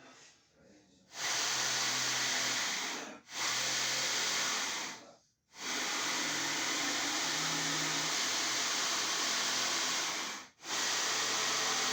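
An electric power tool's motor running in four long stretches, starting about a second in and stopping briefly three times, its pitch shifting slightly as it works.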